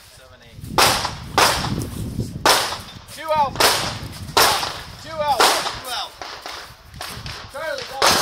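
Pistol shots fired at an even pace, about one a second, each a sharp crack, several followed by a brief falling tone.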